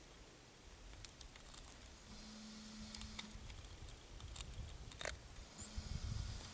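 Camcorder zoom motor whirring briefly twice as the lens zooms out, over faint clicks and rustles of the camera and clothing being handled.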